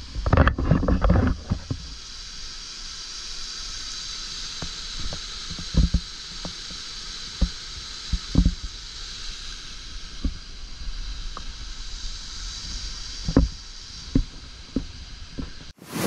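Steady hiss of a waterfall rushing over rocks, heard through wind buffeting the camera microphone. A heavy gust in the first second or so, then scattered knocks and thumps from the camera being handled.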